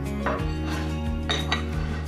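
Background pop song playing between sung lines, with a few light clinks of dishes and cutlery: one about a third of a second in and two close together around one and a half seconds in.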